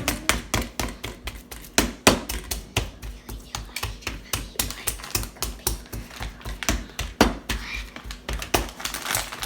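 Steak being pounded with a meat tenderiser on a board to tenderise it: rapid, irregular knocks, about three to four a second.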